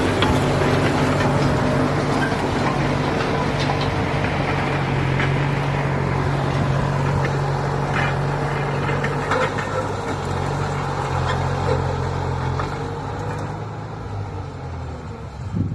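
95-horsepower farm tractor's diesel engine running steadily while tilling soil, with scattered rattles and knocks from the tillage gear; the sound fades over the last few seconds.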